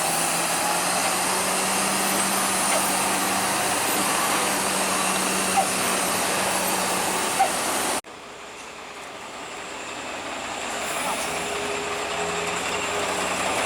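Heavy truck traffic on the road: steady engine and road noise that cuts off abruptly about eight seconds in, then comes back quieter and slowly builds up again.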